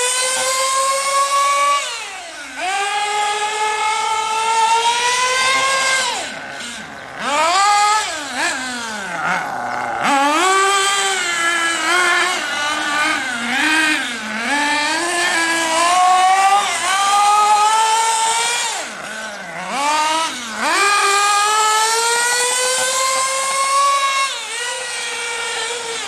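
HPI Trophy 3.5 buggy's nitro engine, fitted with a long clutch bell, at high revs: its pitch climbs steadily through long full-throttle runs, then drops sharply as the throttle comes off, about four times. In the middle stretch it blips and dips quickly through tighter turns.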